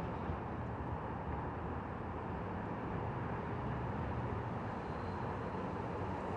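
Steady road and traffic noise, an even rumble with no distinct events.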